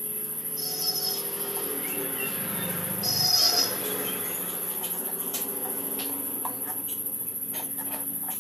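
Night crickets trilling in a steady, high continuous tone, with two short, louder chirping trills, one about a second in and one near the middle. Faint scattered clicks and taps of wet fish pieces being handled run underneath.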